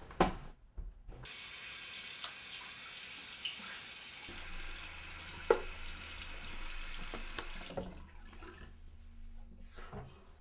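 Bathroom sink tap running while water is splashed on a face, with a sharp knock about halfway through. The water stops about eight seconds in, followed by soft rustling.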